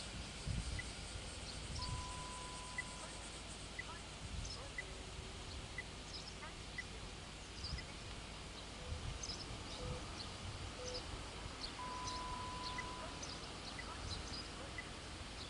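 Faint outdoor morning ambience: wind rumbling on the microphone, with small birds chirping here and there and a faint tick repeating about once a second. A couple of short, steady, whistle-like notes sound about two seconds in and again near the end.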